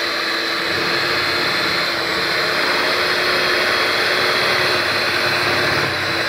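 Electric hand mixer running steadily, a motor hum with a high whine, its beaters working through a thick cream cheese and whipped-topping mixture in a plastic bowl.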